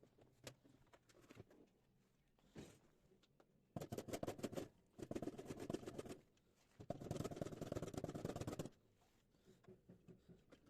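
Three bursts of rapid clicking, each a second or two long, from tool work on a washing machine being taken apart, with a few single ticks between them.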